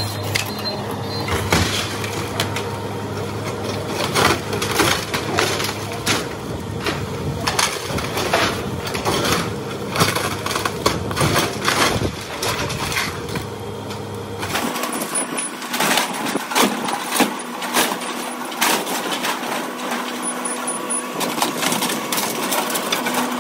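Takeuchi TB290 compact excavator demolishing a wood-framed garage: repeated irregular cracks and crashes of wood splintering and siding and roofing breaking as the bucket tears in, over the excavator's steady diesel engine drone. The low engine drone drops out about two-thirds of the way through while the cracking and crashing go on.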